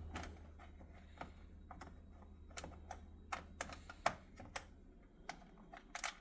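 Scattered small metal clicks and taps of a screwdriver working out the screws that hold a stove's control switch. A low hum underneath stops about four seconds in.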